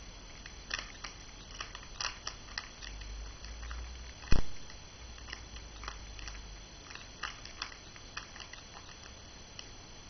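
Rapid plastic clicking of a 3x3 Rubik's cube as its layers are turned one after another in a speed solve, with one louder knock about four seconds in.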